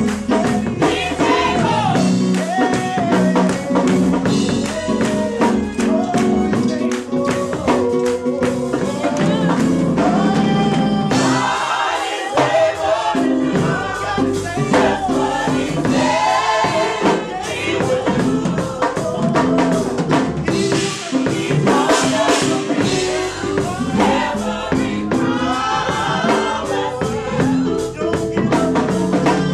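Gospel vocal group singing live into microphones, a lead voice with several others joining, over a band with drums keeping a steady beat.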